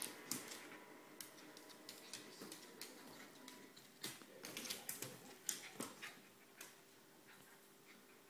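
Faint, scattered light clicks and taps from a toy poodle scrambling about on a wooden floor, its claws ticking on the boards, with a quick run of taps about halfway through.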